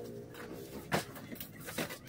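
Small boxes of medicine being handled and lifted out of a cardboard delivery carton: light rustling with two sharp knocks, the louder one about a second in and a second near the end.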